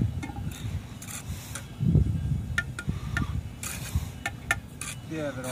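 Steel masonry trowels tapping and scraping on concrete blocks and mortar: scattered sharp clicks, bunched in the second half, over a low rumble.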